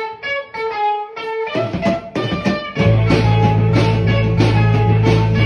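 Background music led by plucked guitar notes. The mix fills out after about a second and a half, and a heavy bass line with drums comes in about three seconds in.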